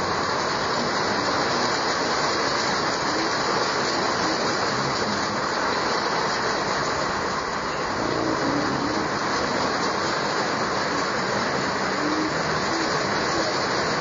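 Heavy tropical rain falling, a steady dense hiss with no break.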